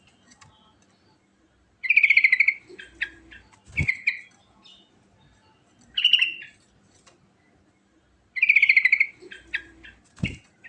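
A sooty-headed bulbul singing in bursts of bright chattering phrases, twice opening with a fast rattling trill. Two dull knocks come between phrases.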